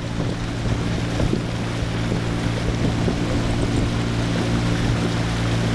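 Boat motor running steadily under way, a constant low hum, with wind on the microphone and water rushing past the hull.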